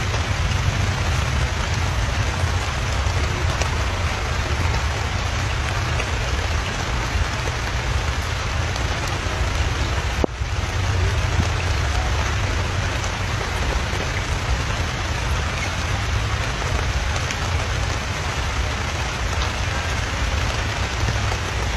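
Steady rain falling on grass and a puddle, with a low rumble underneath; the sound dips briefly about ten seconds in.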